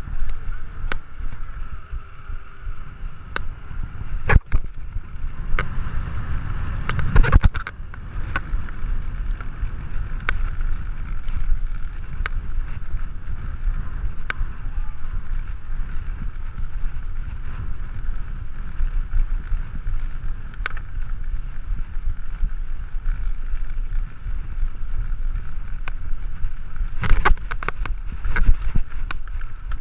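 Specialized Stumpjumper mountain bike being ridden at race pace, its tyres rumbling over tarmac and grass, with wind buffeting the microphone. Sharp knocks and rattles from the bike over bumps come now and then, with a cluster of them near the end.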